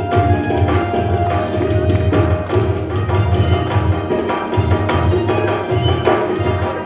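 Background music with drum percussion and a steady beat.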